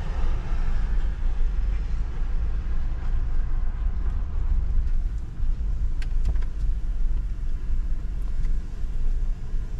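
Steady low rumble inside a Chevrolet Tahoe's cabin as it drives slowly: engine and tyre noise, with a couple of faint clicks about six seconds in.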